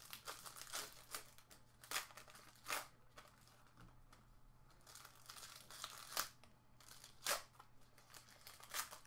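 Trading-card pack wrappers being torn open and crinkled by hand, with several sharp rips a second or more apart among softer crinkling.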